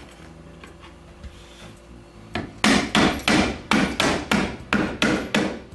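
White rubber mallet lightly tapping a glued dovetail joint of a wooden drawer box together, seating the joint. About ten even blows, roughly three a second, start about two and a half seconds in.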